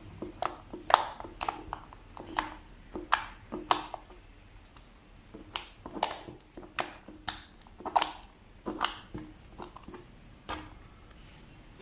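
Slime being squeezed and poked close up, giving irregular sharp pops and clicks with a short lull partway through.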